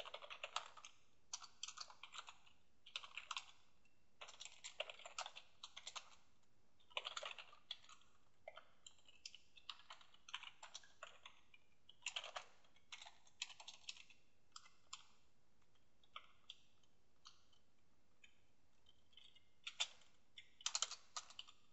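Typing on a computer keyboard: quick bursts of keystrokes with short pauses, thinning to a few scattered taps for several seconds past the middle, then a fast burst near the end.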